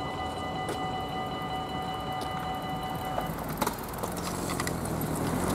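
Level-crossing warning bell ringing steadily while the barrier arms rise, stopping about three seconds in; a sharp knock follows soon after, then road traffic noise builds near the end.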